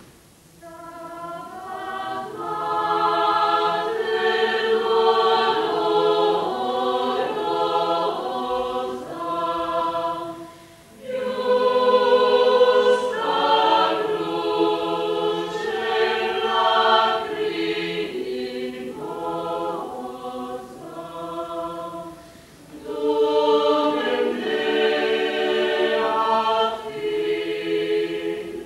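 A choir singing sustained chords in three long phrases, with brief breaks about eleven and twenty-two seconds in.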